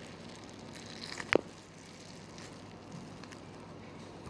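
A stress ball filled with foam beads being squeezed, giving soft, faint crackling from the beads, with one sharp click about a second and a half in.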